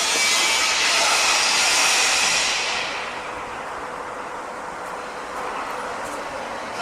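Construction-site machinery noise: a loud, steady rushing hiss that fades and drops away about three seconds in, leaving a lower rumbling din.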